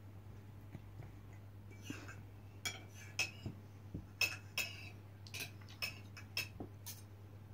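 A dozen or so light, sharp clicks and clinks at irregular intervals, the loudest about three and four seconds in, over a faint steady hum.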